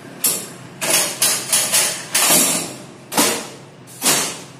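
A series of about eight sharp knocks, irregularly spaced and each dying away within a fraction of a second, over a low rumble.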